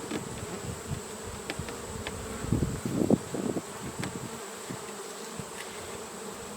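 Honeybees buzzing around a hive in a steady drone, with a few knocks of hive equipment being handled about halfway through.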